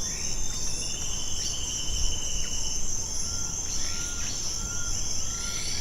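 Amazon rainforest ambience: a steady high drone of insects with birds calling over it, a long whistled note early on, then a short call repeated about twice a second, over a low, even background rumble.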